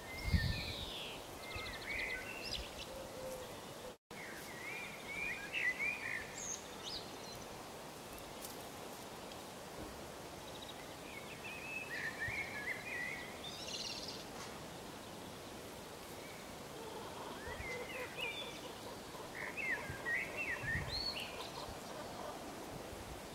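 Small birds singing short, high, twittering phrases on and off over a steady outdoor background hiss.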